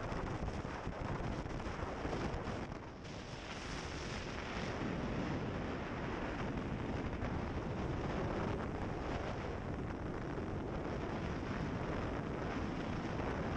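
Steady rushing noise of a fast-moving Navy assault craft underway: engine, water and wind buffeting the microphone together, with a short dip about three seconds in.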